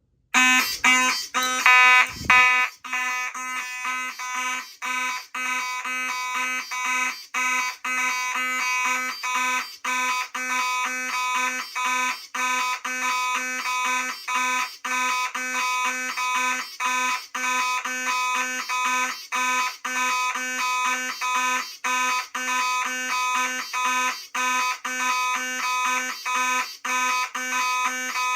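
Simplex fire alarm horns sounding together off two panels in alarm: a harsh buzzing tone, cut by brief gaps about every half second to second. It is loudest in the first couple of seconds, with a short thump about two seconds in.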